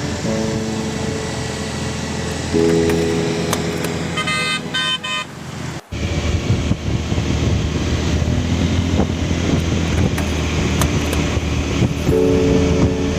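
Road traffic with a vehicle horn honking three quick times about four seconds in. After an abrupt cut near six seconds, a louder low rumble of engine and wind from travelling on the road.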